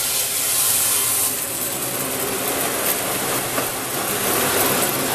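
Portable band sawmill's 15 hp electric motor running with the band blade spinning but not cutting: a steady hum under a hiss, with the high hiss easing off about a second in.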